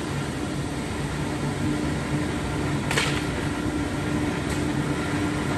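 Five-axis CNC router running with a steady machine hum and a held low tone, with a short hiss about three seconds in.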